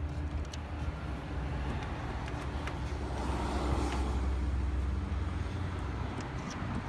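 A motor vehicle running nearby: a steady low hum that swells to its loudest around the middle and then eases off, with a few faint clicks over it.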